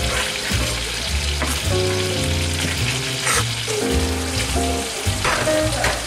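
Chicken breasts frying in oil and butter in a cast-iron skillet, a steady sizzling hiss, with background music and its bass line playing over it.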